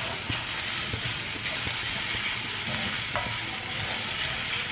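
Beetroot thoran stir-frying in a kadai on high flame: a steady sizzle with the scrape and light clicks of a spatula stirring it. This is the final sauté after the ground coconut, cumin and red chilli paste goes in.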